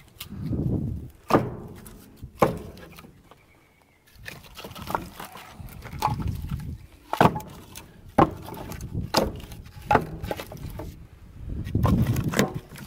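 Pieces of split firewood being thrown into a bin one at a time, each landing with a sharp wooden knock, about one a second, with a short pause around three to four seconds in.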